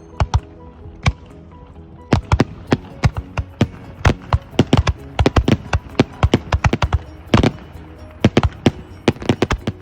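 Fireworks going off in a rapid, irregular barrage of sharp bangs, several a second, with a short lull about a second in. Music plays steadily underneath.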